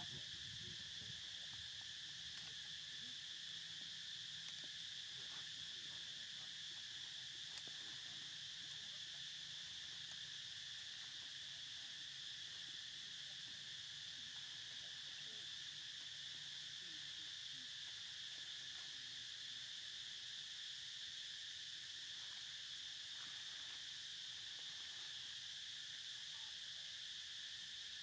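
Steady chorus of insects, a continuous high-pitched drone that holds level without a break.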